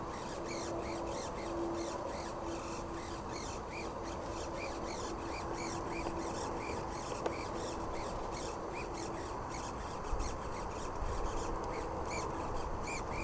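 Soft rhythmic choo-choo chuffing, about two squeaks a second, over a faint steady hum from a Multiplex Twinstar foam model plane; it is unclear whether foam is rubbing on foam or the motor is making it.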